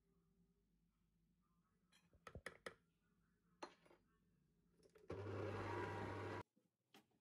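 Electric stand mixer beating stiff biscuit dough: the motor switches on about five seconds in, runs steadily with a low hum for just over a second, then cuts off suddenly. A few light clicks and knocks come before it.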